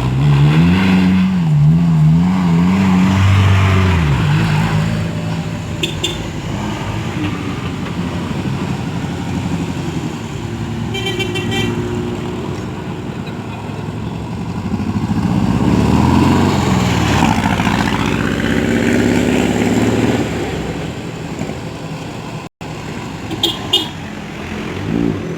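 Vehicle engines running, revving up and down near the start and again about fifteen seconds in, with a short horn toot about eleven seconds in.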